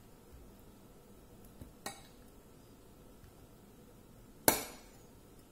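Metal serving spoon clinking against the dishes while curry is ladled into a glass lunch box: a faint clink about two seconds in and a louder, ringing clink near the end.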